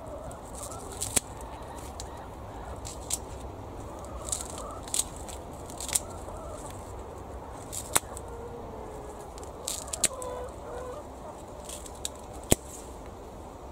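Domestic hens clucking, clearest in the second half, with a dozen or so sharp clicks scattered through: secateurs snipping the tops off elephant garlic stalks. The loudest snip comes near the end.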